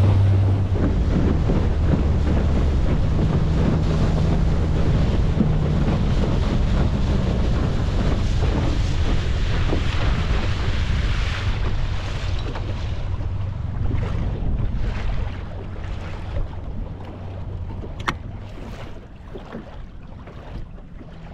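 Small outboard motor driving a Gheenoe skiff under way, with wind buffeting the microphone and water rushing past the hull; the motor and water noise ease off in the second half as the boat slows toward the shore.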